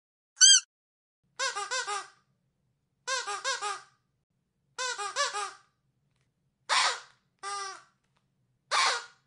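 Squeaky dog toy being squeezed: a single squeak, then three quick runs of about four squeaks each, then three longer, hissier squeaks near the end. Each squeak rises and falls in pitch.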